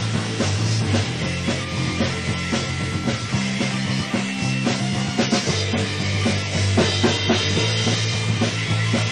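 Rock band playing an instrumental passage with bass, drums and guitar and no singing, from a demo recorded on cassette tape, so the high end is dull.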